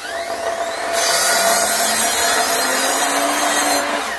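Sliding compound mitre saw fitted with an all-purpose blade: the motor spins up with a rising whine, then the blade cuts through timber for about three seconds, a loud, dense sawing noise that stops abruptly as the cut finishes.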